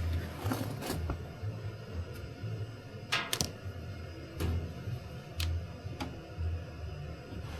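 Background music with a steady low beat, about two pulses a second, with a few sharp clicks and taps of handling, the loudest about three seconds in.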